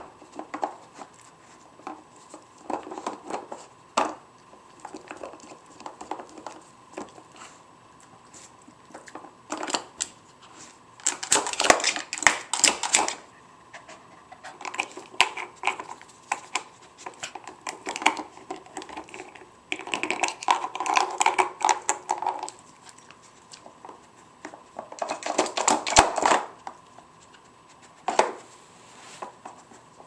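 A dog working a hard plastic puzzle toy: irregular clicks, taps and clatter as its nose and paws knock the board, pegs and drawers, with a few louder bursts of rattling around the middle and near the end.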